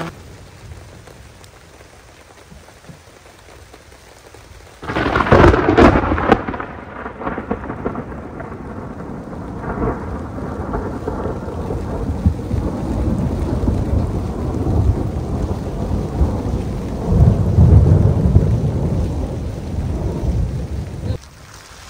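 Rain falling steadily, then a sudden sharp thunderclap about five seconds in that rolls on as long rumbling thunder, swelling loud again near the end before it dies back to the rain.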